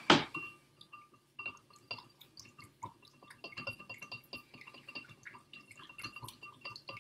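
A spoon stirring a thin sauce in a small bowl: a sharp clink at the start, then many light, irregular clinks and wet scrapes of the spoon against the bowl.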